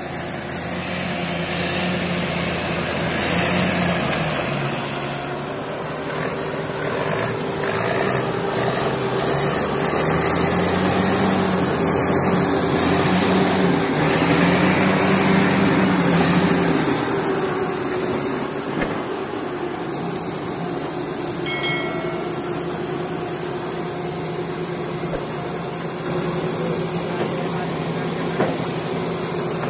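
Komatsu hydraulic excavator's diesel engine running continuously, rising and falling in pitch and loudness several times as the boom and bucket dig under hydraulic load, then settling steadier near the end.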